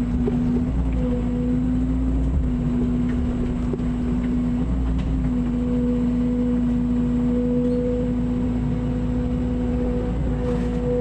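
Mini excavator's diesel engine running steadily, with a constant droning hum that holds one pitch.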